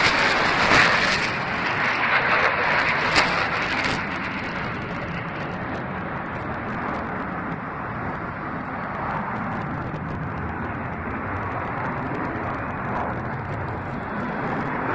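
Jet engine noise from Blue Angels F/A-18 Hornets flying past. It is loud at first and dies away over about four seconds into a steadier, fainter noise as the jets move off.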